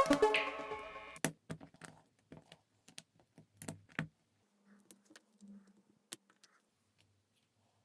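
LEGO plastic bricks clicking as pieces are pressed together by hand: a scattered handful of short, sharp clicks, several seconds apart.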